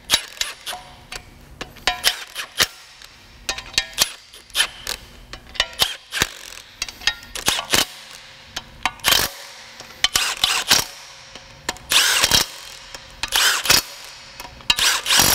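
Cordless power tool run in many short, irregular bursts, driving the flexplate-to-crankshaft bolts home, with clicks of the tool and socket between the bursts.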